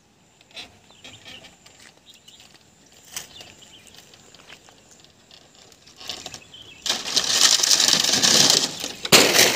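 Dry palmyra palm fronds and leaf-stalk bases rustling and scraping as a man climbs the trunk. There are faint scattered crackles at first, then a loud rustling for about two seconds near the end, with a short burst after it.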